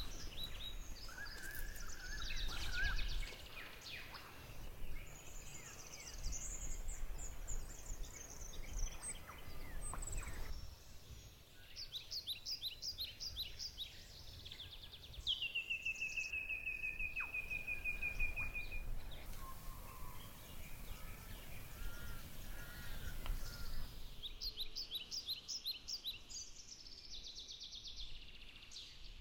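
Morning birdsong from several birds: quick repeated chirps and trills, with one long whistled note about halfway through that falls in pitch and then holds steady, over a faint low background noise.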